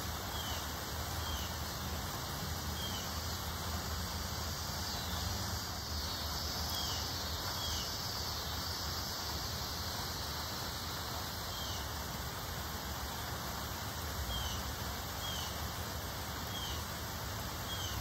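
Steady rustling hiss of wind through tree foliage, with a small bird giving short rising chirps every second or few, often in pairs.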